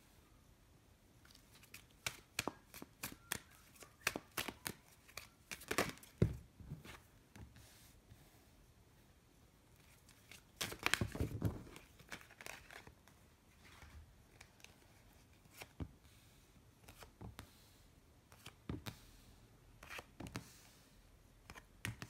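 Tarot cards being handled and laid out one by one on a cloth-covered table: a string of short sharp card snaps and slides, with a denser flurry of card handling about eleven seconds in.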